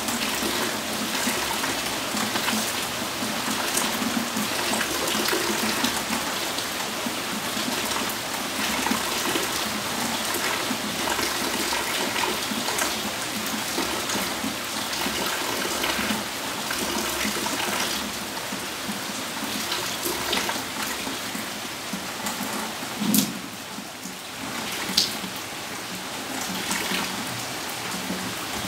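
Steady rain falling on wet paved tiles and potted plants, an even, unbroken patter. Two louder sharp taps stand out near the end.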